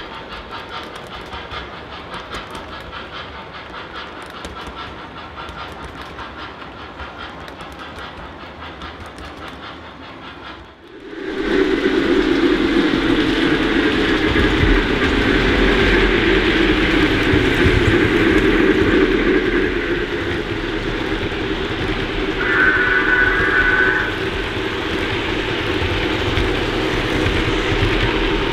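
O-gauge model steam locomotive running on its track, with clicking from the wheels and the locomotive's built-in steam sounds playing. The sound jumps suddenly louder about 11 seconds in and becomes a steady run, with a short high tone about two-thirds of the way through.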